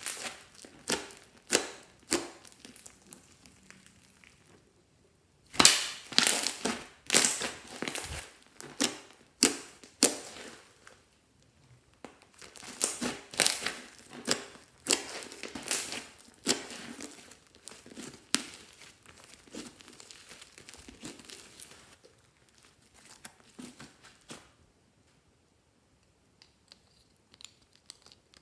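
Hand-worked slime being squeezed and pressed, making irregular crinkling, crackling and sharp popping clicks in bursts. It goes mostly quiet in the last few seconds.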